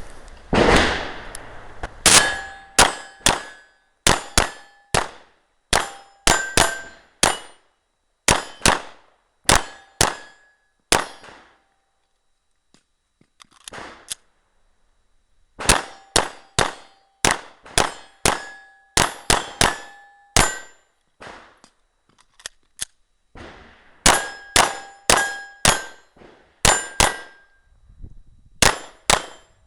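Strings of gunshots, most followed by the ringing clang of steel targets being hit. There is a pause of a few seconds midway.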